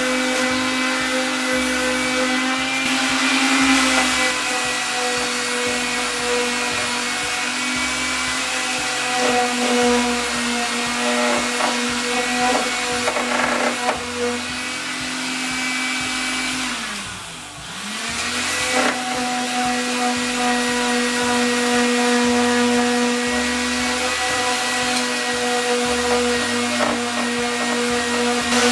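Handheld electric power tool running at high speed with a steady whine while sanding. About 17 seconds in, the motor briefly slows down and then spins back up to speed.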